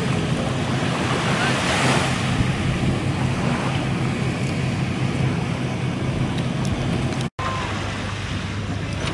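A steady low engine hum under wind and sea noise, with water washing at the shore. The sound cuts out for an instant about seven seconds in.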